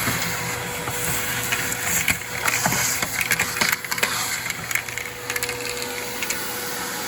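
Heavy machine engine running steadily with a steady whine, while wood and junk crunch, crack and splinter in a dense run of knocks during the middle seconds.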